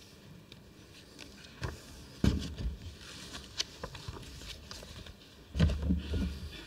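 Papers being handled and knocks on a lectern, picked up close by the lectern microphone: scattered taps and thumps, the loudest a little over two seconds in, with a cluster of dull thumps near the end.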